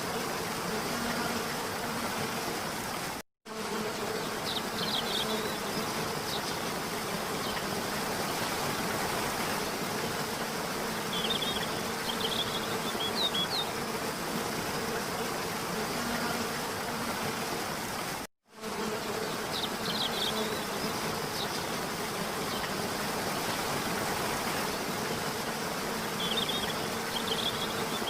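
Waterfall rushing steadily, with a faint steady hum under it and a few clusters of short high chirps. The sound cuts out for a moment twice, about fifteen seconds apart, where the recording loops.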